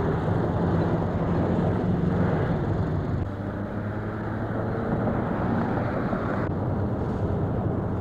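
Steady road-traffic and engine noise, with a low engine drone under a constant rushing hiss.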